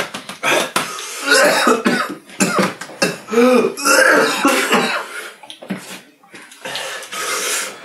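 Two men coughing and clearing their throats in a string of separate bursts, with pained groans between, from the burn of an extremely hot chili sauce in the throat.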